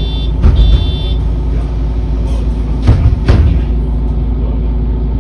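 Onboard sound of a MAN NL323 Lion's City city bus: steady low diesel engine drone. Right at the start, two short high rings of the bus's stop-request bell, and a few dull thumps about half a second in and around three seconds in.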